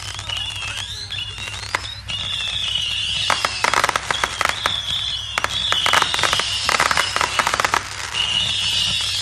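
Fireworks: several high, wavering whistles from shells rising, with dense crackling pops from about three seconds in.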